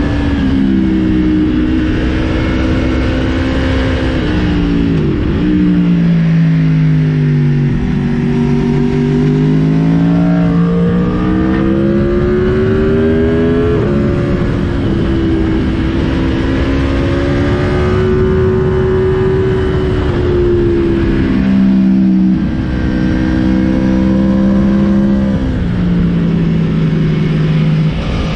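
Aprilia Tuono V4's V4 engine running hard on the road, its pitch climbing under throttle and falling off again, with several sudden steps down as it changes gear, under steady wind rush on the helmet camera.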